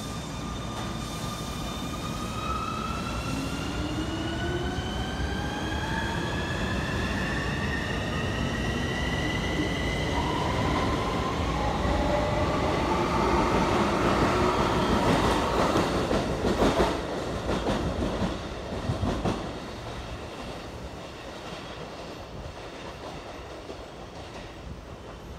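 Keikyu electric commuter trains pulling out together: a motor whine of several tones climbing steadily in pitch as they accelerate. Then wheels clack over rail joints, loudest about 15 to 19 seconds in, and the rumble fades as the trains draw away.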